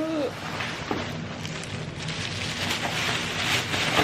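Crackling rustle of a shopping bag as items are pulled out of it.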